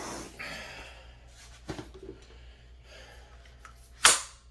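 A person breathing, with a few faint clicks from handling. A short, loud sniff comes near the end.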